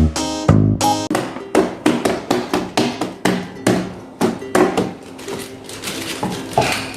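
A quick series of sharp, hammer-like knocks, about three a second, growing weaker after about five seconds.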